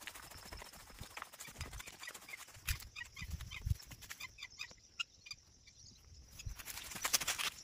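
Irregular footsteps on grass and soft ground, with a patter of small clicks and a few low thuds.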